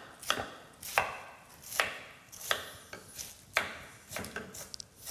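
Chef's knife chopping white cabbage on a cutting board: a steady series of about eight sharp chops, a little more than one a second.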